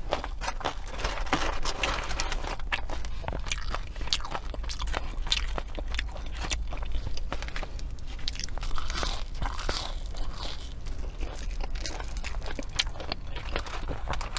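A person biting into and chewing crunchy fast food, with many irregular crisp crunches throughout.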